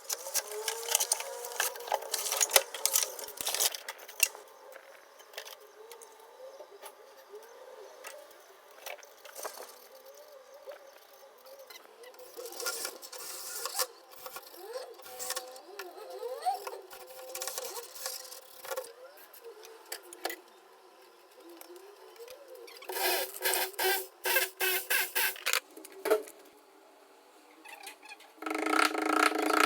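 Hand work on a combi boiler installation: scattered clicks, scrapes and squeaks of tools and fittings, a run of fast rattling about three-quarters of the way through, and a steady rasping noise near the end.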